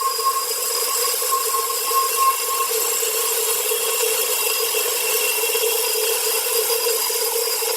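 Powered sawmill saw running steadily through wood, a continuous hum with a hiss over it and no break.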